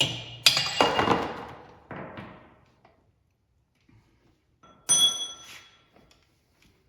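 Heavy steel parts of a Dana 70 axle clanking and ringing as they are worked loose. There are several sharp metal hits: a cluster in the first second, a smaller one about two seconds in, and a bright ringing clang near five seconds.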